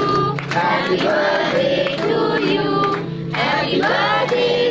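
A group of people singing a birthday song together in chorus, with hand-clapping in time.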